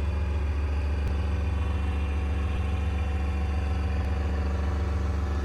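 A large engine running steadily at constant speed: an even, low drone.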